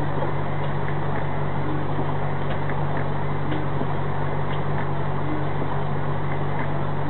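Steady low drone of a truck's engine heard from inside the cab, with faint ticks now and then.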